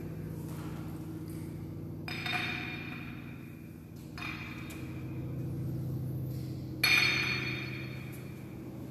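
Altar vessels clinking: a metal chalice and small cruets knocking together three times, about two seconds apart, as the chalice is prepared with wine and water. Each clink rings briefly, and the last is the loudest. A low steady hum runs underneath.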